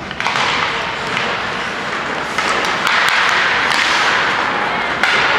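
Ice hockey play from a faceoff: sharp clacks of sticks on the puck and ice, starting with the draw and recurring every second or so. Under them is the scrape of skates on the ice, growing louder about two seconds in as the players rush the net.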